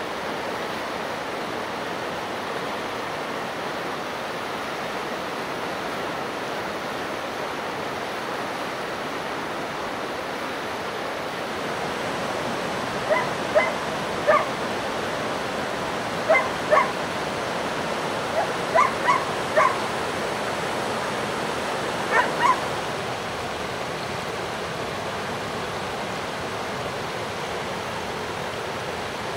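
East Siberian Laika barking: about a dozen short barks in groups of two to four, starting about halfway through, over the steady rushing of a river.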